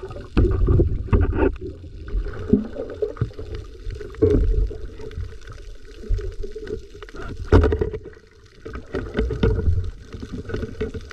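Muffled water sloshing and gurgling heard from under the water, with irregular low thumps from a diver moving about.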